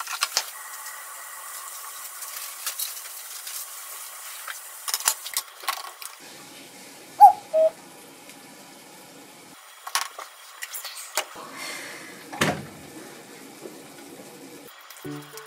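Kitchen handling sounds: scattered clinks and knocks of dishes and utensils, with a heavier knock about twelve seconds in as a plate is set down on the counter. About seven seconds in, two short electronic beeps from a digital kitchen timer, the second one lower, are the loudest sounds.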